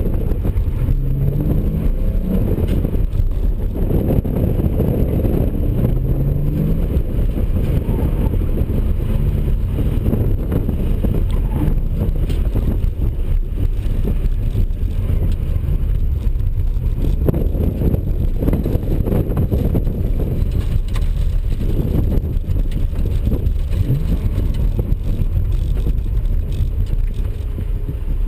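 Porsche 997 Carrera's flat-six engine heard from inside the cabin under hard driving, its pitch rising and falling with throttle and gear changes, sweeping up a few times in the first seconds. The level eases slightly near the end as the car slows.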